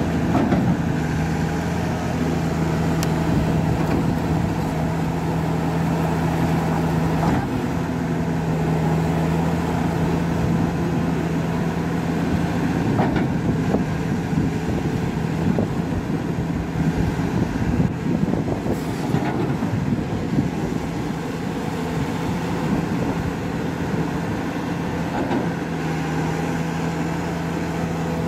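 SDLG crawler excavator's diesel engine running steadily as the machine digs, a low drone with occasional faint knocks.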